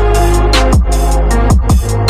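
Electronic dubstep-style music: deep kick drums that drop in pitch hit several times over a sustained bass line.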